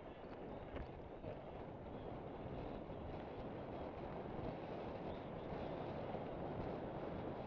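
Steady rush of wind buffeting the microphone of a camera on a moving mountain bike, mixed with the tyres rolling over a dirt trail.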